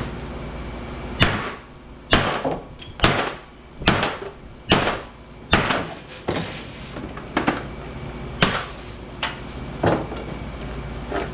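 Hammer blows on a steel transformer from a light ballast, about a dozen sharp metallic strikes roughly one a second, hitting the core's weld to crack it open and free the copper winding. A steady low hum runs underneath.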